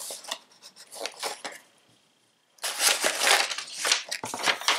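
Paper wrapping crinkling and rustling as it is folded back off the contents of a cardboard box, in scattered crackles at first, then louder and denser after a brief silent gap about halfway through.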